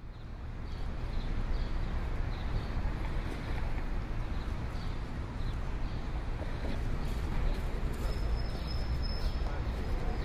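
Steady outdoor background noise, heaviest in the low end, rising in over the first second. Faint high chirps repeat at a steady pace throughout, and a thin, steady high tone joins about eight seconds in.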